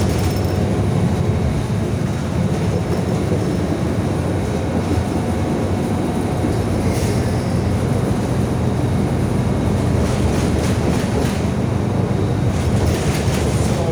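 Steady rumble and road noise heard inside a moving Metrolink feeder bus, with a few brief rattles near the middle and toward the end.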